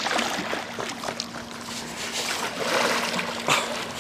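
Shallow water splashing and sloshing as a goliath grouper is hauled in on a rope, in uneven surges, with a sharp knock about three and a half seconds in.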